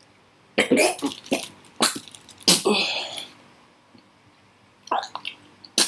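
A man gagging and coughing in harsh, sudden bursts, retching on a mouthful of crispy fried insect: a cluster of them in the first three seconds, then two more near the end.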